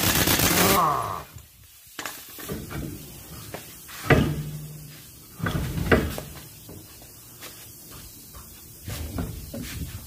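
Impact wrench hammering on a truck wheel nut, stopping about a second in with its motor winding down. Then a few heavy metallic clunks and knocks as the trailer wheel is worked off the hub, the loudest about four seconds in and another near six seconds.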